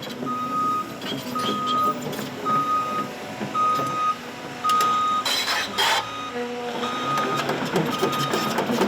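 Backup alarm on heavy machinery beeping about once a second, a single steady tone, over the rumble of the machine moving; the beeping breaks off briefly about five seconds in, when a loud burst of rushing noise covers it.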